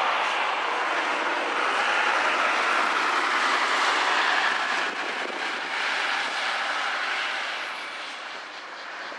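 Road traffic passing on the main road: a steady rush of tyre and engine noise that fades about eight seconds in.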